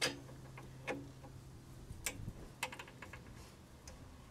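Light plastic clicks and taps as gloved hands work the oxygen sensor's wiring harness and clips, a sharper click at the start and a few more scattered over the next few seconds, over a faint low hum.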